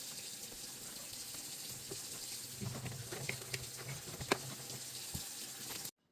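Water running from a tap into a sink, with a few light knocks and clinks over it. It cuts off suddenly near the end.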